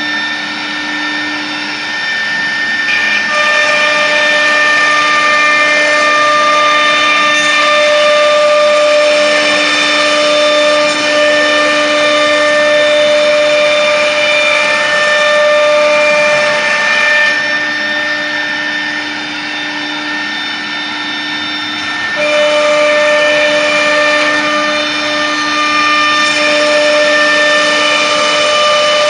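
CNC router running: a steady machine whine made of several tones over a hiss. The tones shift about three seconds in and again a little past twenty seconds, as the machine changes what it is doing.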